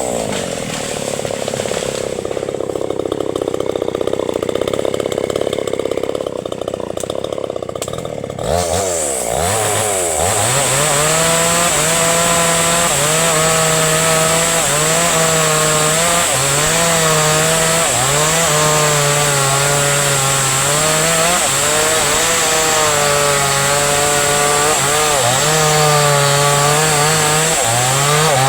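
Chainsaw engine: the revs drop just after the start and it runs lower and duller for several seconds. About nine seconds in it revs back up and runs at high revs, its pitch wavering as it cuts into the acacia trunk.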